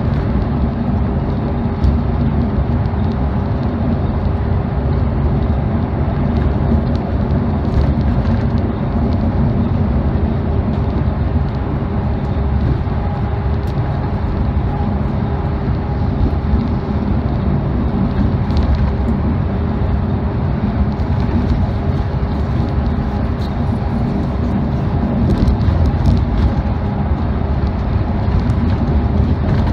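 Steady low rumble inside a road coach travelling at highway speed: engine hum and tyre noise, with a few faint light clicks.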